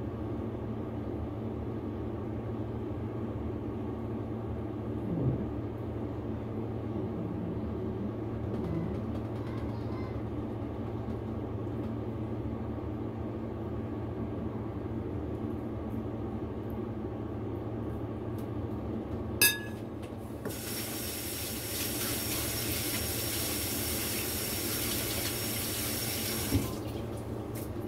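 Water from a tap starts about two-thirds of the way in after a sharp click, runs steadily for about six seconds, then stops with a small knock. A steady low hum runs underneath throughout.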